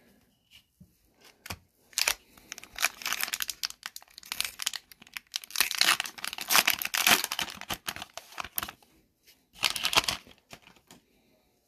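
Foil wrapper of an Upper Deck hockey card pack being torn open and crinkled by hand, crackling for several seconds, then a shorter burst of crinkling near the end.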